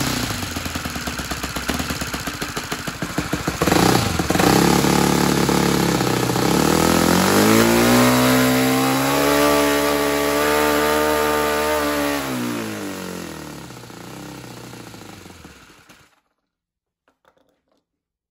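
Saito 100 single-cylinder four-stroke glow engine turning a propeller. It runs steadily, is throttled up to a high rising pitch about five seconds in, holds there, then throttles back down and stops about sixteen seconds in. It runs the way it is supposed to now that its cam timing, found 180 degrees reversed, has been reset.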